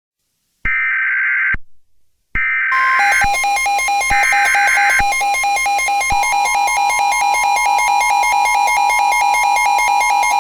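Emergency Alert System alert: three short bursts of screechy digital data tones (the SAME header), then a loud electronic alert tone pulsing about four times a second over the steady two-tone attention signal.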